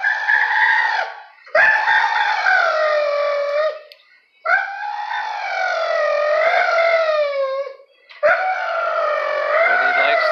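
A dog howling in four long calls, each wavering up and down in pitch, with short breaks between them.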